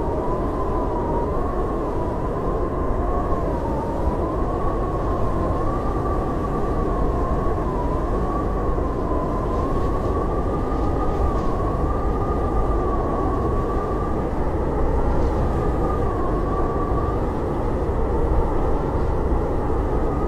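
Howling blizzard wind: a steady rush with a deep rumble beneath, and a whistling howl that wavers slowly up and down in pitch.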